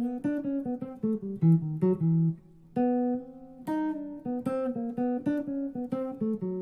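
Guitar playing a fast single-note jazz lick, an 'out' line over E minor built on the fifth: two runs of quick plucked notes with a brief break about two and a half seconds in.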